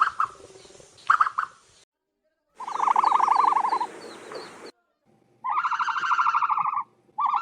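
Ostrich calls: two short chirps, then three pulsing, buzzy trills of about a second and a half to two seconds each, the second and third close together near the end.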